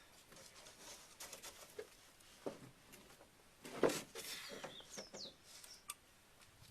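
Faint, scattered clicks and knocks with the loudest cluster about four seconds in, and a few quick falling high chirps, like a small bird, around five seconds in.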